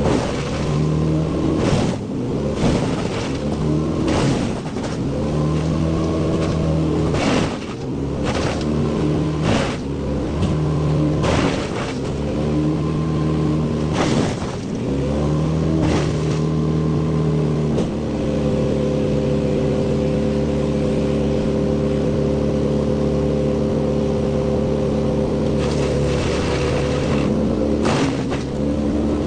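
Wood chipper chipping a pine tree: its engine runs hard and repeatedly sags in pitch and recovers as it takes the load, with sharp cracks of wood breaking in the feed about every one to two seconds. The load eases and the engine runs steadier for several seconds past the middle, then the cracking resumes near the end.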